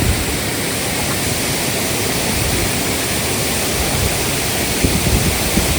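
Waterfall pouring close by, a steady loud rush of water, with a few low thuds near the end.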